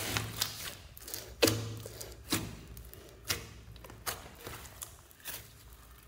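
Glittery slime mixed with foam beads being squeezed and pressed by hand, giving a string of sharp clicks and pops about once a second, the loudest about a second and a half in.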